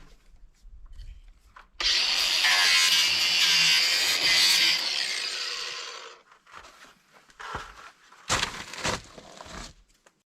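Power saw cutting through a soffit panel for about four seconds, dying away at the end of the cut, followed by a few short knocks.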